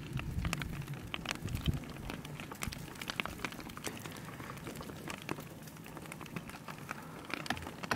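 Irregular crackling and clinking from the crust of a slowly advancing lava flow, its cooled, glassy skin cracking and shifting over the molten rock beneath, several sharp little clicks a second.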